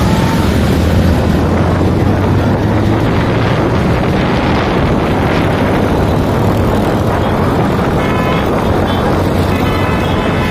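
Several motorcycle engines running steadily in a moving pack, with wind rushing over the microphone.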